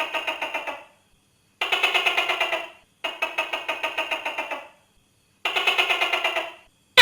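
Tokay gecko's rapid pulsing rattle call, four bursts of about a second each with gaps between, about a dozen pulses a second. Right at the end a louder, sharper call note begins.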